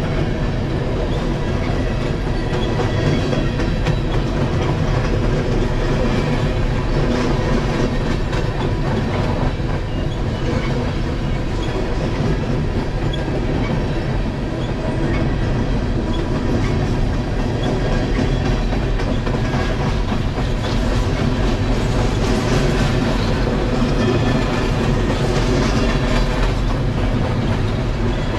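Train rolling steadily past, with the continuous clatter of wheels over the rails.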